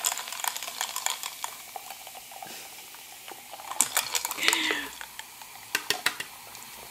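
Ginger ale poured slowly from a small can into a glass of ice, fizzing with a steady hiss and many small crackles, with a few sharper clicks of the ice.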